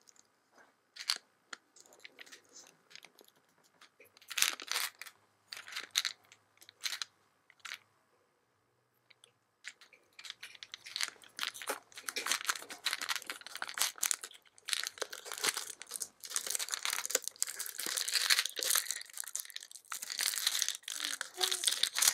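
Clear plastic film crinkling and tearing as it is peeled off a small plastic toy gumball dispenser. Scattered crackles at first, then dense, continuous crinkling from about halfway through.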